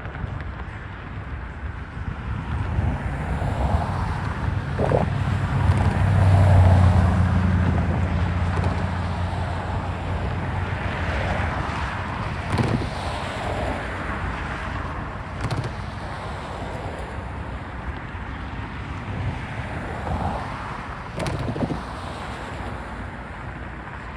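Double-stack intermodal freight train passing: steel wheels rumbling on the rails with occasional sharp clanks. A diesel locomotive's engine drone swells and peaks about six to seven seconds in, then fades as the mid-train distributed power locomotives go by.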